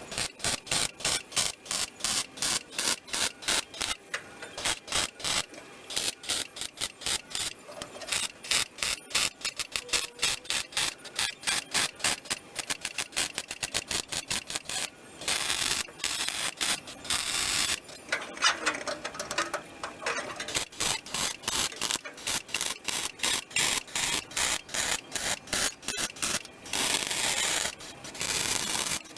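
Welding arc on the sheet-steel floor panel of a classic Mini, crackling in rapid short bursts about three a second as the seam is stitch-welded, with a couple of longer unbroken runs in the second half.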